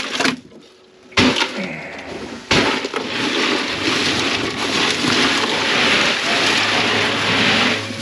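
Crushed ice in a boat's fish box: a few sharp knocks, then about five seconds of steady rattling and crunching as the ice is shifted around a fish.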